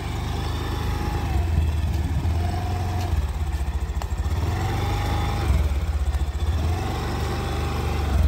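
Honda Scoopy scooter's small single-cylinder engine idling steadily with a fast, even low pulse.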